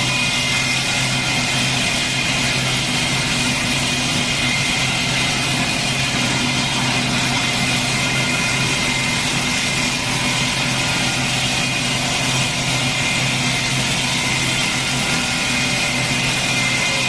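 CNC stone-turning lathe running steadily as it shapes a marble column, a constant machine hum under a high, even hiss.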